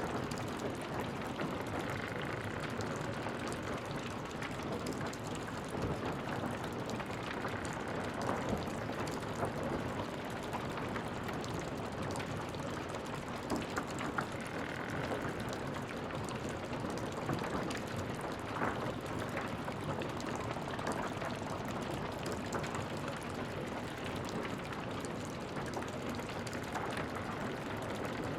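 Fire-aftermath ambience: a steady hiss and patter of small crackles from smouldering debris, with a faint short whistling tone a few times.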